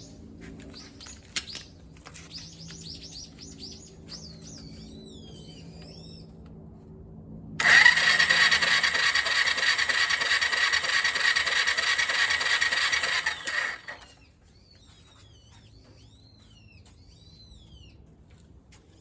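Suzuki Volty's electric starter cranking the engine for about six seconds without it firing, then stopping abruptly. The engine will not start, but the uploader reports no abnormal noise from the engine itself. Birds chirp faintly before and after.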